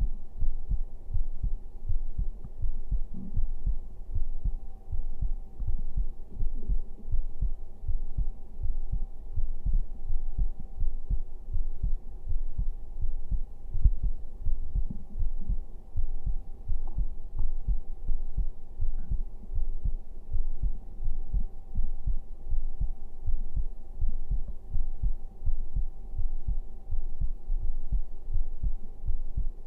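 A man's heartbeat heard through a microphone held against his chest: a steady, even run of low thumps, with a faint steady hum underneath.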